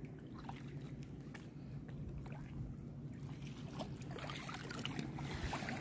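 Soft splashing and trickling of shallow seawater as someone wades through it, with a few small clicks, over a steady low hum.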